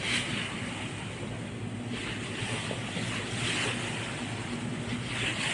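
Passenger ferry under way: its engine hums steadily beneath the rush of water churning along the hull, and the splashing surges every second or two.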